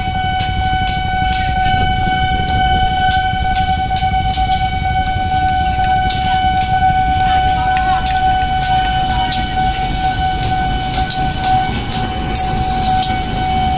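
KAI CC 201 diesel-electric locomotive pulling a rake of tank wagons slowly past on a shunting move: steady engine rumble with repeated clicks of wheels over the rail joints. A steady high tone sounds over it and stops shortly before the end.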